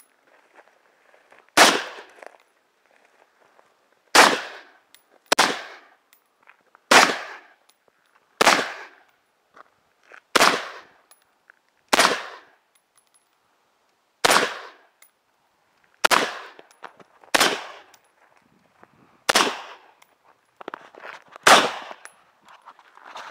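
Ruger Mini-14 Ranch Rifle in .223 firing semi-automatically: twelve single shots at an uneven pace, about one to two and a half seconds apart, each trailing off briefly.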